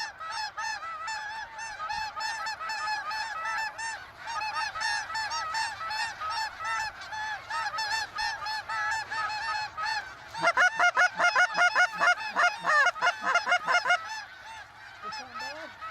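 A large flock of snow geese calling: a dense, continuous chorus of short, high, yelping honks. The calling swells much louder and closer from about ten seconds in and eases off again near fourteen seconds.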